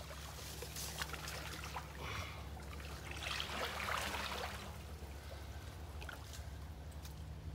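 Shallow pond water sloshing and trickling as a large alligator moves through it, with a louder swirl of water about three to four seconds in. A steady low hum runs underneath.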